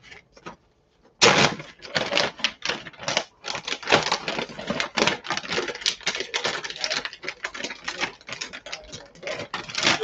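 Clear plastic zip-lock freezer bag crinkling and rustling as it is handled and opened out, with fast irregular crackles starting about a second in.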